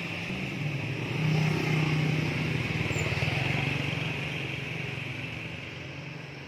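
A motor vehicle passing on the road: its engine hum swells about a second in, then slowly fades away.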